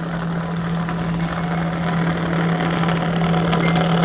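DoALL V-36 36-inch vertical bandsaw running at low speed: a steady hum with an even hiss over it, slowly getting a little louder.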